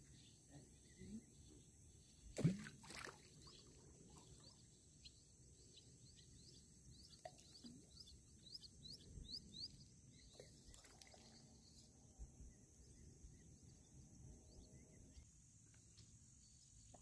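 Quiet evening outdoor ambience: a steady high drone of insects with scattered short, high chirps, and one brief thump about two and a half seconds in.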